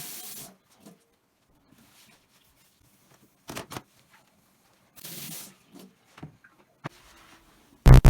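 Household handling sounds: two short hissing bursts, with light clicks and knocks between, and one loud thud near the end.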